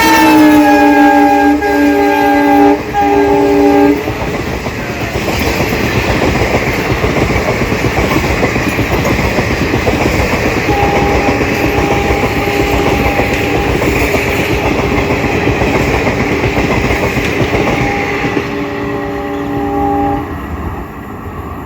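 Horn of a WDP4 diesel locomotive sounding as the train passes at speed, its several notes dropping in pitch as it goes by and stopping about four seconds in. The coaches then rumble past with wheels clacking on the rail joints, while the horn sounds again more faintly from about the middle until near the end, when the noise falls away.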